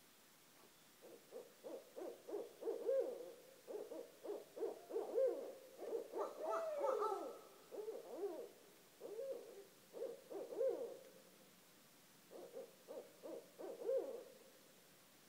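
Barred owls calling: fast, uneven series of hoots with one long rising-then-falling wail in the middle. A short pause comes near the end before the hooting starts again.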